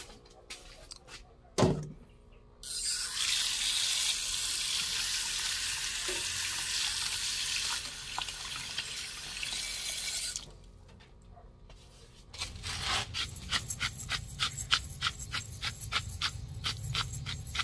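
A single knock, then water running into a stainless steel bowl of tuna tail pieces for about eight seconds as they are washed. After a short pause, a hand pepper mill grinds over the bowl with a quick, rhythmic clicking.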